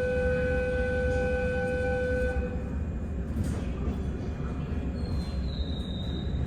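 Train running with a steady low rumble. A steady pitched tone sounds over it and stops about two and a half seconds in, and a fainter high tone comes near the end.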